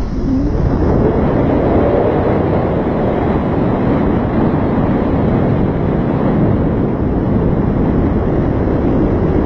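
Loud, steady wind buffeting the microphone, a dense low rumble that rises sharply at the start and then holds even, as in flight on a paraglider.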